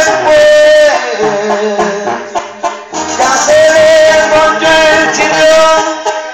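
A man singing a Mexican corrido into a microphone over a karaoke backing track, holding long notes. A stretch of about two seconds, starting about a second in, has no long held notes.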